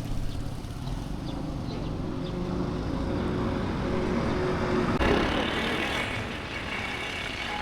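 Road traffic: vehicle engines running, a steady rumble that brightens about five seconds in.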